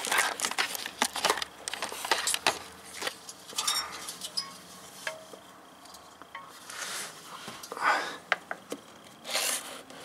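Handling noise: a run of clicks and taps, then a few longer rustles and scrapes, as a camera is set down and a meter's test leads are moved about.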